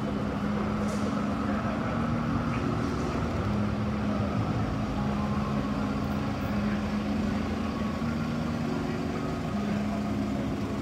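Street traffic: cars creeping and idling in a narrow city lane, with a steady low engine hum.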